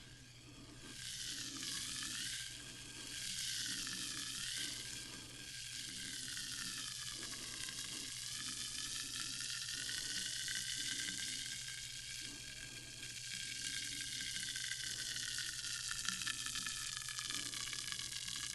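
Sparkling water fizzing: a steady, crackling hiss of bubbles bursting at the surface.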